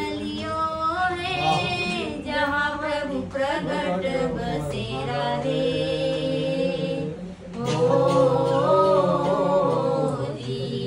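A woman singing unaccompanied, in long wavering phrases with a sustained held note, breaking off briefly and then going into a louder phrase near the end.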